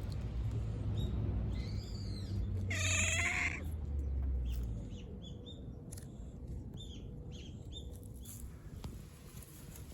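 A cat meowing: a short call about two seconds in, then a louder, drawn-out meow a second later, followed by several short high chirps. A low rumble sits underneath for the first half.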